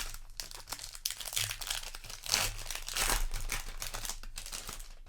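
Foil booster pack wrapper crinkling as it is handled, an irregular rustle that is busiest about two to three seconds in.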